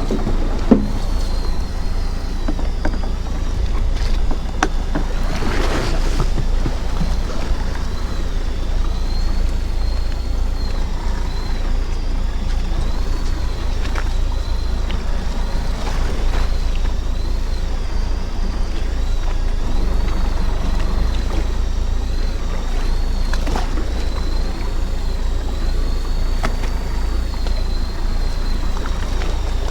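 A fishing boat's engine running steadily, a low rumble with water and wind noise over it. A faint high whine wavers up and down in pitch throughout, and there are a few brief knocks.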